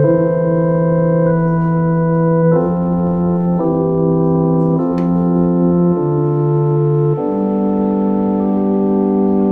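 Organ music: slow, sustained chords, each held for a second or so before moving to the next.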